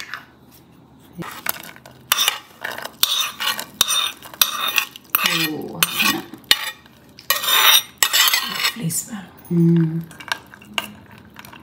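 Metal ladle and spoon clinking and scraping against a steel saucepan of milk as ghee-fried cashews, almonds and raisins are tipped in and stirred. There are many short clinks and one longer scrape about three-quarters of the way through.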